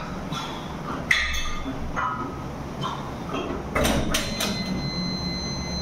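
Metal gym equipment clanking: a sharp knock about a second in and a few more around four seconds, over a steady low hum.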